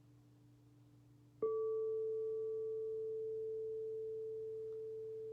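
A meditation instrument is struck once about a second and a half in. It gives a clear, nearly pure ringing note that slowly fades, over the faint ring of an earlier note still sounding.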